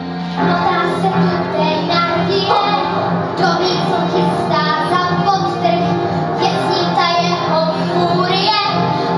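Children's choir singing in unison over instrumental accompaniment, the voices coming in about half a second in over a steady held low note.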